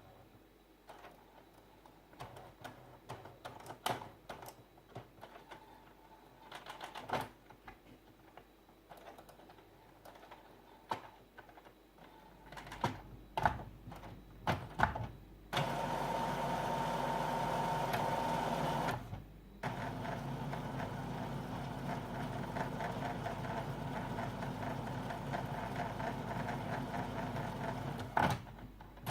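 Epson WF-3620 inkjet printer's mechanism at work: scattered clicks and ticks, a few louder knocks, then from about halfway a steady motor whir that dips briefly and runs on, with a sharp click near the end.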